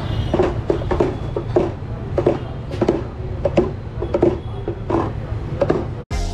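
Thick lassi or curd mixture sloshing and glugging in a metal tray as a perforated-disc churning rod works through it, with rhythmic wet strokes about three a second over a steady low rumble. The sound cuts off just before the end, and music starts.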